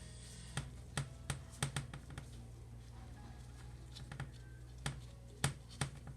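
Irregular light clicks and taps from small parts and tools being handled, about a dozen spread unevenly, over a low steady hum.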